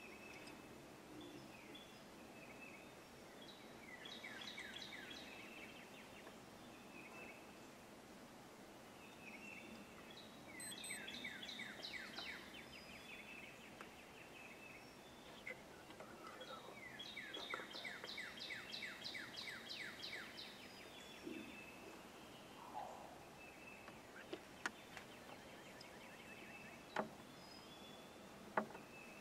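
Wild songbirds singing: several phrases of rapid, repeated down-slurred notes, each lasting two to three seconds and coming every several seconds, with other scattered chirps. A few sharp clicks sound near the end.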